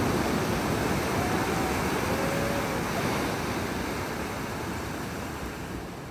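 Ocean surf: a steady rush of breaking waves that slowly fades out near the end.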